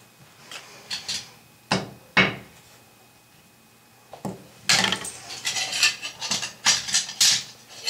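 Hand tools and metal hardware being handled: a few separate sharp knocks and clinks, then a dense run of metallic clattering during the second half.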